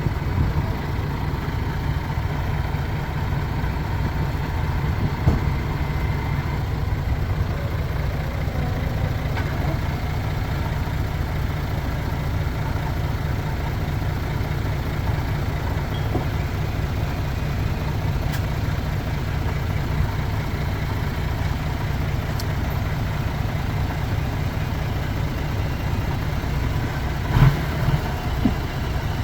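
Heavy earthmoving machinery's diesel engine running steadily with a deep, even drone, with a brief knock near the end.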